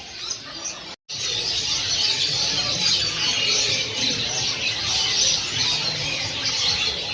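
Many small caged songbirds chirping and singing at once, a dense overlapping chatter. It cuts out briefly about a second in and then comes back loud.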